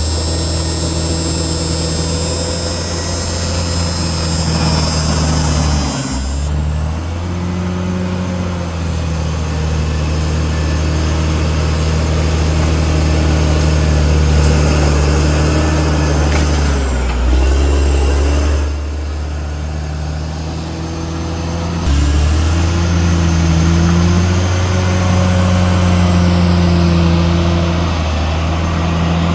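CAT D6R XL bulldozer's diesel engine running hard, its pitch dipping and picking up again several times as it works. A high hiss sits over the first six seconds.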